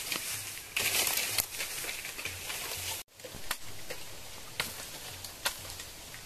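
Dry bamboo leaves and brush rustling and crackling with scattered light snaps as a long felled bamboo pole is handled and dragged through the thicket. It cuts out abruptly about three seconds in, then resumes more faintly.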